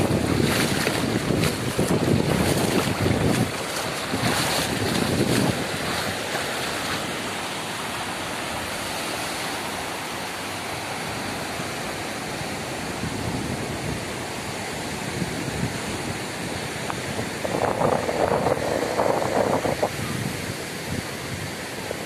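Bare feet splashing through the shallow wash of surf, with uneven rushes during the first few seconds. Then a steady hiss of waves breaking and running up the sand, with wind buffeting the microphone and a brief louder rush about three-quarters of the way through.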